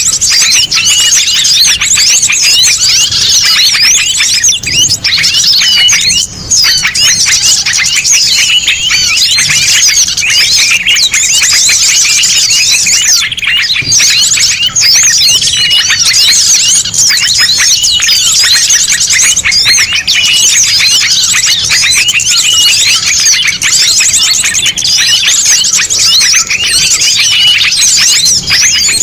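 A noisy, dense chorus of many small birds chirping and twittering over one another without pause, from a mixed small-bird lure recording (suara pikat) made to call small birds in.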